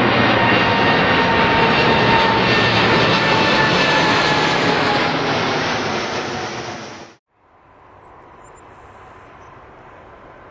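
Boeing 747-8F freighter's four GEnx-2B turbofans at takeoff power, a loud rushing roar with steady whining fan tones as the jet passes overhead and climbs away. About seven seconds in the sound cuts off suddenly, leaving only a faint steady hiss.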